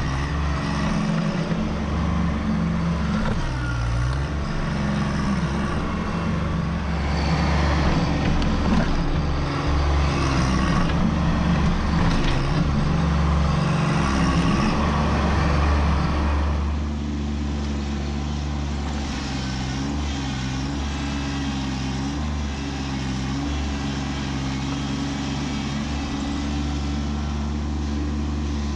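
Kubota B2601 compact tractor's three-cylinder diesel engine running under load while its front-loader stump bucket digs into a stump. It grows louder and rougher from about a quarter of the way in until a little past halfway, then settles to a steadier, quieter run.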